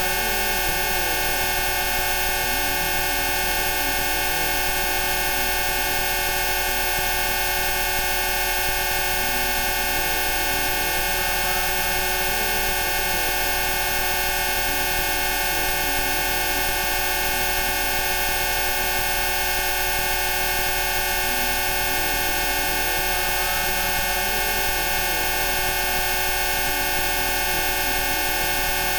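A dense chord of steady electronic tones, layered Rife-frequency sine tones from low to very high pitch, held without change. Faint wavering pitches drift underneath.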